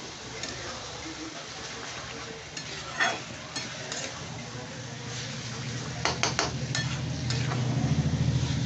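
A spoon stirring and scraping shredded chicken through masala in a pan, with a steady low sizzle and scattered clicks of the spoon against the pan, a cluster of them about six seconds in. A low hum comes up in the second half and grows louder.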